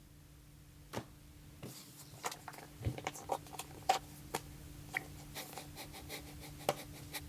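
Pokémon trading cards being handled and flipped through by hand: a string of small clicks and short rustles, becoming more frequent after about two seconds, over a faint steady hum.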